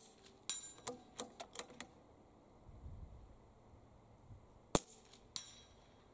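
Two .22 rimfire shots from a CZ 457 rifle, each answered about half a second later by the ring of the bullet striking a steel plate target: the first ring comes just after the start, following a shot fired a moment before, and a second sharp crack and ring come near the end. A few lighter clicks follow the first ring.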